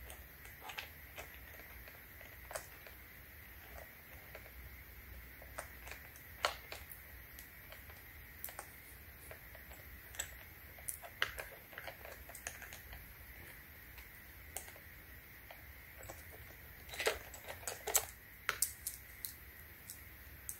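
Irregular small metallic clicks and rattles of a chainsaw chain being handled and seated onto the guide bar and drive sprocket, with a quick run of louder clicks near the end.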